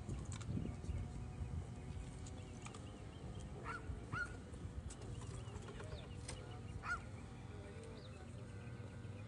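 A drill team's rifles and boots making sharp slaps and claps several times, scattered irregularly, with a few short high squeaks and a steady low rumble underneath.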